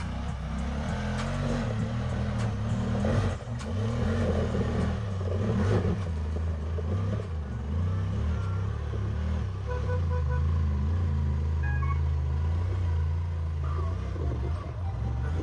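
Off-road vehicle engine running and revving under load, with a few knocks and clatter in the first several seconds.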